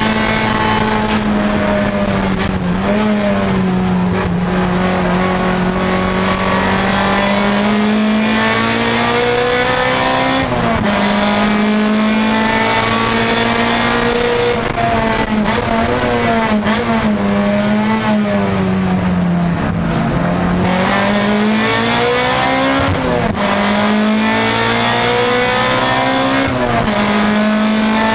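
Nissan Pulsar GTi-R's SR20 four-cylinder engine running hard at high revs, heard inside the race car's cabin. The engine note swells and falls as the revs change, with several brief dips in pitch.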